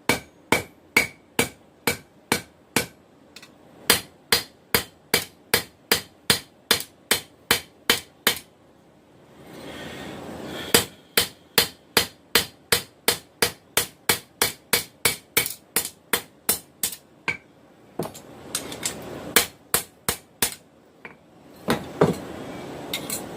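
A blacksmith's hand hammer striking hot steel on an anvil to forge a skinner knife blade. The blows come in runs of steady strokes about three a second, with short breaks between the runs.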